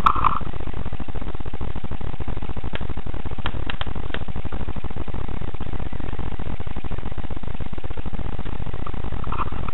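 Steady, loud crackling rumble from a cheap action camera's microphone, with a few sharp clicks about three to four seconds in.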